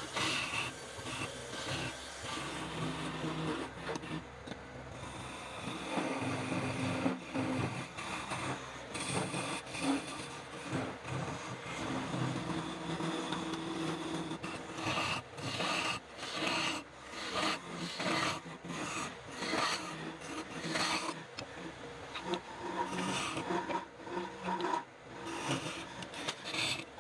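A hand tool scraping and rasping across wood in repeated strokes, the strokes most distinct in the second half.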